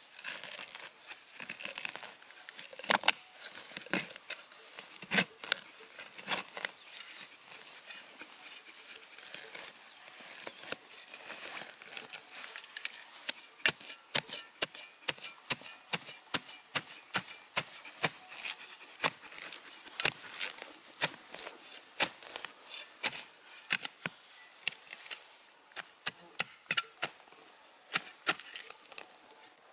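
Small folding shovel stabbing and cutting into mossy forest soil and roots. It makes a run of sharp, irregular chops and scrapes, sparse at first and several a second from about halfway through.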